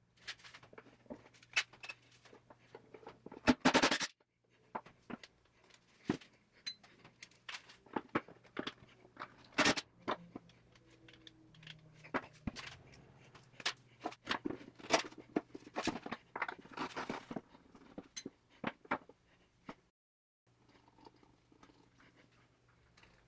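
Clicks and clatter of metal hardware and tools being handled while the latches are taken off a wooden box. A cordless impact driver with a nut-driver bit runs in a couple of short, loud bursts, about three and a half seconds in and again near sixteen seconds.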